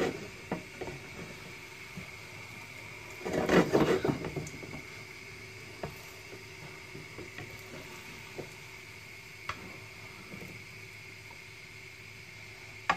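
Kitchen clatter of things being handled while cooking: a loud burst of clattering about three seconds in, then scattered light knocks and clicks over a steady faint hum.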